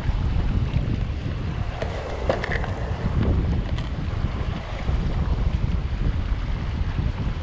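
Wind buffeting the microphone over sea waves washing on rocks, with a few clicks and rattles about two seconds in as a plastic fishing tackle box is unlatched and opened.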